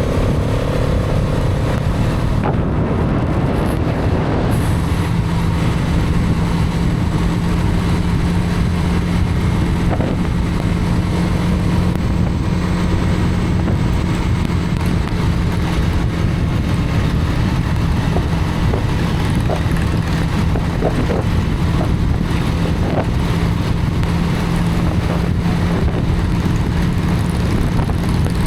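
Hero Karizma XMR's single-cylinder engine running at a steady cruise, its note holding level for most of the stretch, over heavy wind and road rumble on the microphone.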